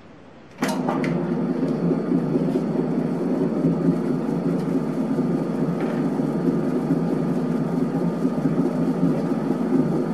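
Electric dough mixer switched on with a click about half a second in, then its motor running steadily as the hook churns flour, egg and milk into crumbly dough at the start of kneading.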